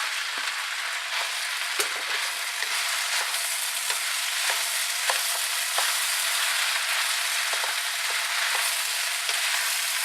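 Fried rice sizzling steadily in a hot wok with eggs just added, while a utensil clicks and scrapes against the wok every half second to a second as it is stirred.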